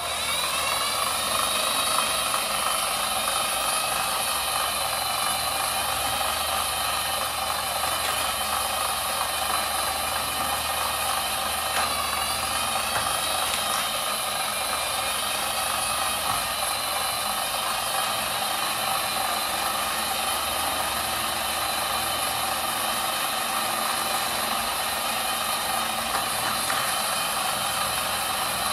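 Electric treadmill motor whining as the belt speeds up over the first second or two, then running steadily at a high pitch that wavers slightly.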